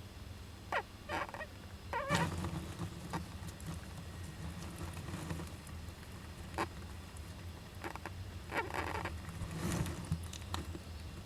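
Young Japanese giant flying squirrel giving a dozen or so short calls, in small clusters near the start and again toward the end, with a couple of brief sharp noises among them.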